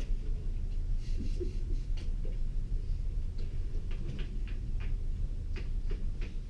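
Room tone: a steady low hum with a few faint, scattered clicks and taps.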